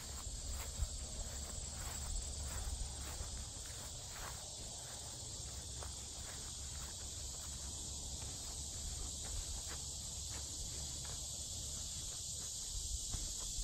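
Steady, unbroken high-pitched insect drone, which she takes for cicadas, with faint footsteps on a woodland dirt trail and a low rumble underneath.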